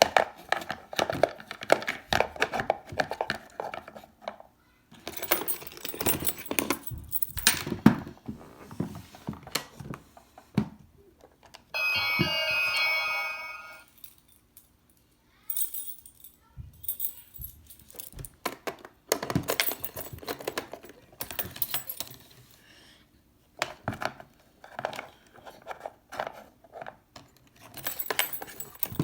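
Wooden doorbell house toy being handled: repeated jangling, clicking and rattling of keys and door parts in irregular bursts. About twelve seconds in, the doorbell gives a single electronic tone lasting about two seconds.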